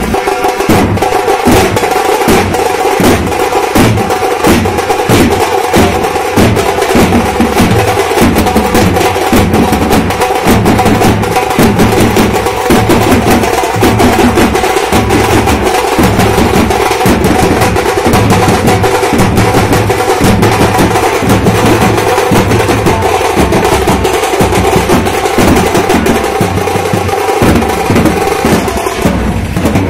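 A Teenmar drum band plays its cylindrical drums loudly in a fast, steady, driving beat. Sustained pitched notes run underneath the drumming.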